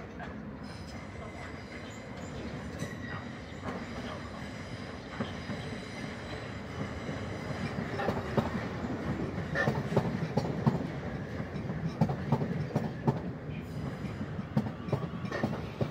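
South Western Railway electric multiple-unit train approaching and running along the platform. A low rumble of wheels on rail grows louder from about halfway through, with many sharp clicks as the wheels cross rail joints.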